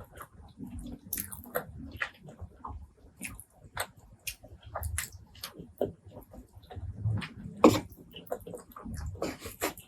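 Close-miked mouth eating sounds: chewing and biting, with many irregular short clicks and smacks. The loudest click comes a little past seven and a half seconds in.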